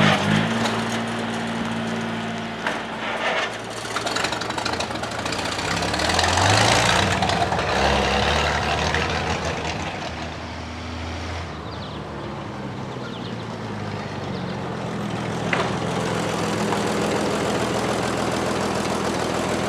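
A vehicle engine idling, revving up about five to seven seconds in, then settling back to a steady run.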